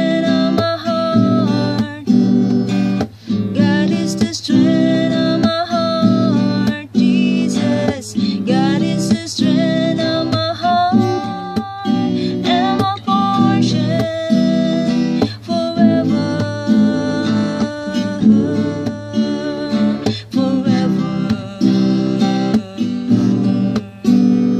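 Acoustic guitar being strummed, playing chords with a melody line.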